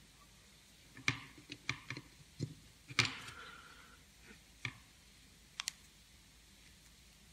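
About a dozen small, irregular clicks and taps from hands working on a circuit board, as an 8-pin LM318 op-amp chip is pressed into its IC socket and the board and its wires are handled.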